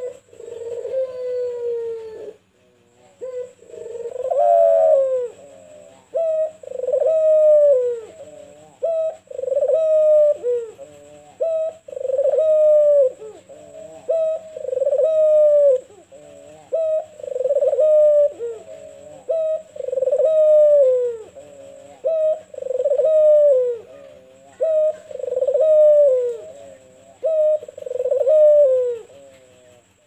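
White (albino) Barbary dove cooing over and over: a long, steady series of deep coos, one every two to three seconds, each ending in a downward slide.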